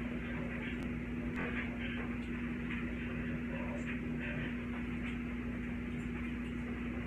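Room tone: a steady electrical hum with a few faint clicks and knocks scattered through it.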